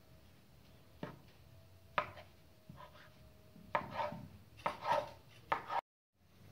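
Knife knocking on a floured wooden board as a roll of lavash dough is cut into pieces. Single knocks come about one and two seconds in, then quicker runs of knocks with some scraping. The sound cuts off abruptly near the end.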